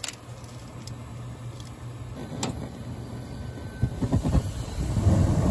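Gas heating section of a rooftop HVAC unit starting up: a steady low hum, a sharp click a little over two seconds in, then a rumbling rush that builds from about four seconds in.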